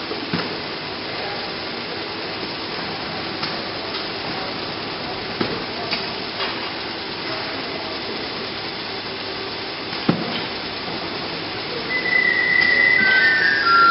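Automated roller conveyor sorting line running steadily with a low hum, with a few sharp knocks as cardboard boxes move and stop on the conveyors. Near the end a simple high tune begins and grows louder.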